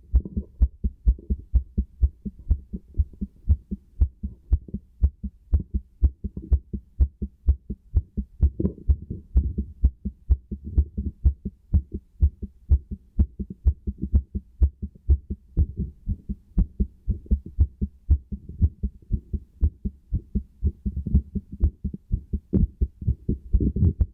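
Human heartbeat heard through a stethoscope: a steady, regular run of low lub-dub thuds.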